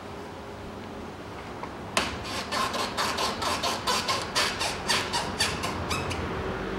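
Rubber power-steering hose being worked off its fitting by hand: a quick, irregular run of squeaks and clicks, about four or five a second, starting about two seconds in and lasting some four seconds.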